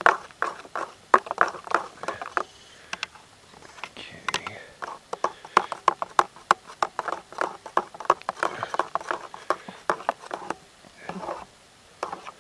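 Hands mixing and kneading egg-and-flour pasta dough: quick, irregular pats and clicks, with a brief lull about two and a half seconds in and another near the end.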